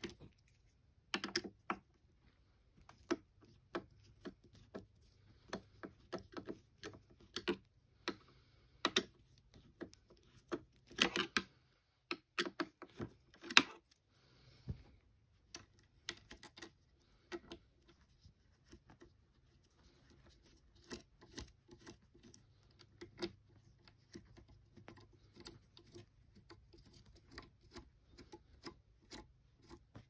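Irregular clicks and scrapes of a Phillips screwdriver turning the screws out of an all-in-one PC's stand, with the loosened screws then spun out by hand.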